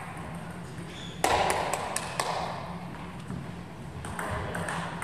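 Table tennis ball bouncing: a louder knock about a second in, then a quick run of light clicks about four a second, with more scattered clicks near the end.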